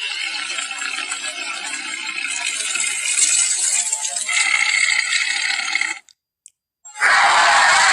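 Animated-film Giganotosaurus sound effects: a long, noisy, rasping rattle for about six seconds that stops abruptly. After a second of silence, a second, louder raspy burst begins.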